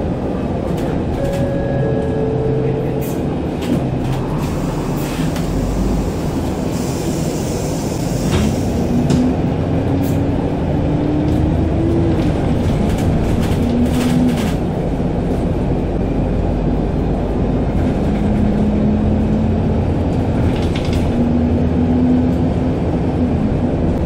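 Alexander Dennis Enviro200 MMC single-deck diesel bus heard from inside the cabin while driving: a steady engine and road rumble with occasional rattles of the fittings. A drivetrain whine rises with speed from about eight seconds in, drops at a gear change and rises again. A short falling two-note chime sounds about a second in.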